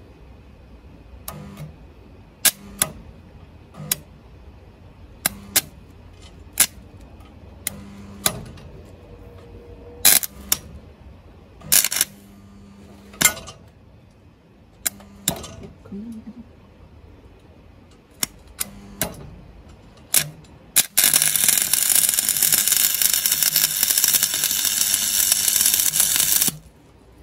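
Stick (SMAW) welding arc from a small inverter welder: more than a dozen short, sharp crackles as the electrode is struck against the steel and the arc flickers out, then, about 21 seconds in, the arc holds and burns with a loud, steady crackle for about five seconds before cutting off suddenly.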